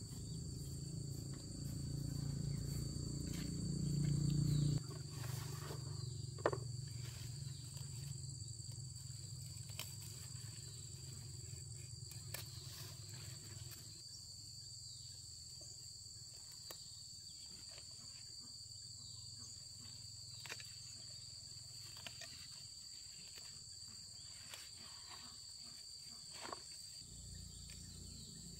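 Steady high-pitched insect buzz, from crickets or cicadas. A louder low hum under it for the first five seconds cuts off suddenly, and a few faint clicks are heard later.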